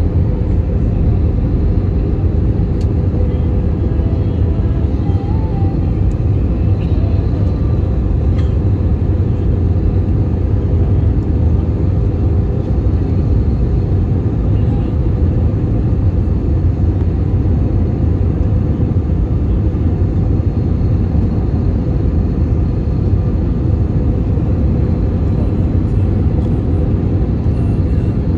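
Steady jet airliner cabin noise heard from a window seat over the wing: a constant deep rumble of the engines and rushing air, with a faint steady hum on top.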